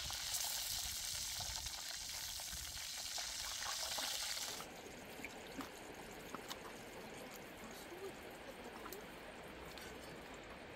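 Slab of pork frying in hot oil in a wok, a steady sizzle that cuts off suddenly about four and a half seconds in. After that, quieter outdoor background with a few faint scattered clicks.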